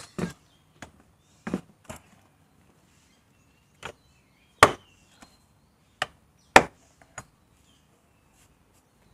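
Plastic engine air filter box lid of a Kia Cerato/Forte being pressed down and its clips snapped shut. It gives a series of about eight sharp separate clicks and knocks over several seconds; the two loudest come about halfway through and again two seconds later.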